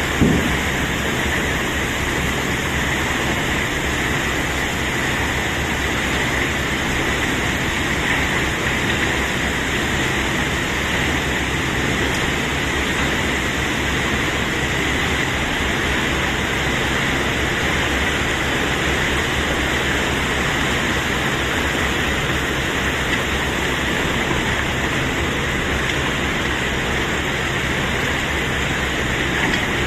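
Cobblestones pouring out during unloading, a steady continuous rush of stone on stone, with a single knock just after the start.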